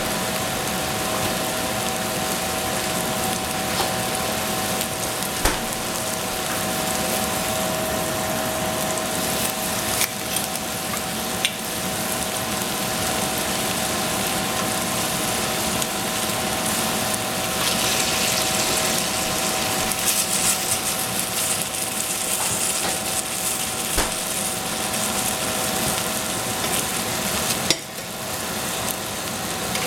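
Egg and mushrooms frying in a stainless steel saucepan over a gas flame: a steady sizzle over a steady hum, with a few light clicks. About halfway through, liquid is poured in from a wine bottle and the sizzle turns brighter and hissier for several seconds.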